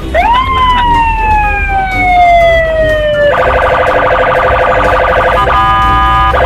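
Electronic police siren sound of a toy police car: one wail that rises quickly and slides slowly down for about three seconds, then switches abruptly to a fast pulsing electronic tone.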